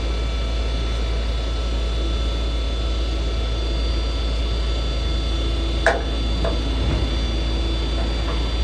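Steady drone of the rollback tow truck's engine running. About six seconds in come two or three short clicks as the tie-down strap is worked.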